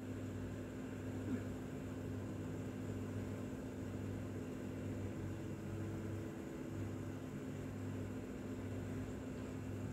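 Steady low electrical hum with a faint even hiss: kitchen room tone.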